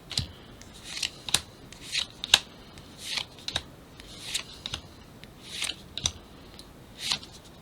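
Pokémon trading cards being slid and flicked over one another by hand, an irregular run of light papery swishes and sharp clicks.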